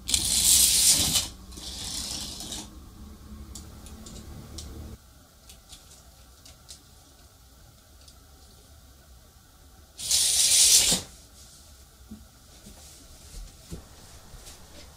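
A wind-up mini car and a battery-and-magnet electromagnetic train racing along their tracks, the car in a plastic channel and the train through a bare copper coil. A loud hissing whir lasts about a second at the start, a shorter, weaker one follows, and another loud burst comes about ten seconds in.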